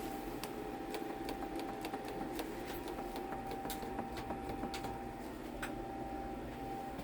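Irregular light clicks and taps from hand work on a bicycle, scattered through a steady high hum.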